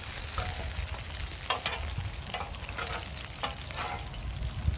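Achiote-marinated pork and cambray onions sizzling in pork lard on a steel griddle, with metal tongs clicking and scraping against the pan again and again as the onions are moved, the sharpest click near the end.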